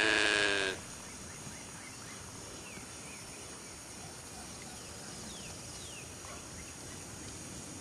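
A loud, wavering farm-animal call cuts off within the first second. After it there is quiet outdoor background with a few faint, high chirps that fall in pitch.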